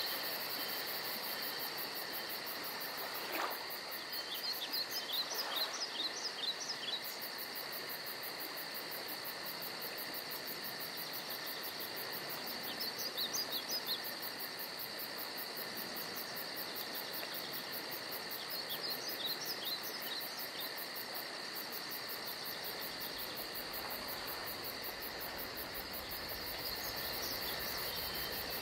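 Steady insect chorus, a high pulsing trill over a constant thin whine, with a small bird singing short phrases of quick chirps every several seconds.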